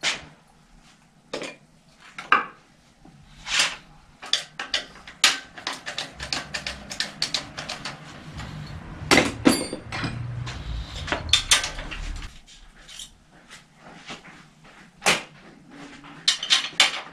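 Hand tools and metal bicycle parts clinking, clacking and knocking during repair work on a bike in a stand, in irregular sharp strikes. A low rumble runs underneath from about six to twelve seconds in.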